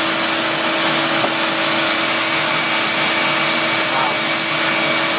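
Bee vacuum running steadily, used to suck up the bees: a constant rushing noise with a steady hum over it.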